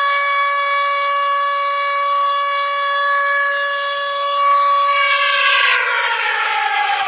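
Civil defense siren sounding one long steady tone, then winding down with its pitch falling from about five seconds in. It is the siren sounded across Turkey on 10 November for the moment of remembrance of Atatürk.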